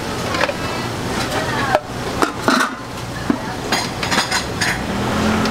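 Metal slotted skimmer and plastic scoop knocking and clinking against stainless steel pots while ladling boiled rice cakes: a string of sharp clinks, several ringing briefly, with a quick cluster about four seconds in, over a steady background hum.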